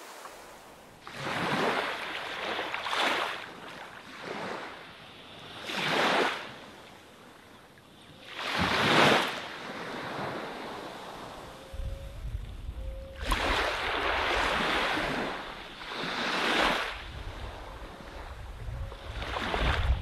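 Small waves washing up onto a sandy beach and drawing back, a swell of surf every two to three seconds. The loudest is about nine seconds in. From a little past halfway, a low wind rumble on the microphone joins it.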